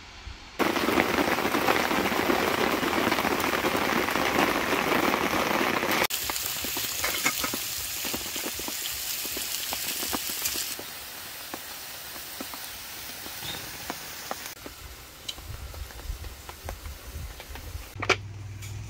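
Sliced onions frying in a pan: a steady sizzle with scattered pops and crackles, loud from about half a second in and dropping in steps. Near the end, a few sharp knocks.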